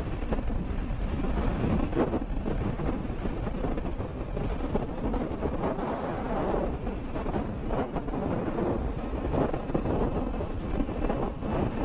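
Wind buffeting the microphone as a Kymco KRV 180i scooter rides at about 100 km/h, with the scooter's running and tyre noise beneath.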